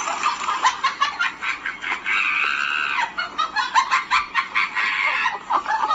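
Chicken-like clucking: quick, repeated short notes, with one longer, drawn-out call about two seconds in.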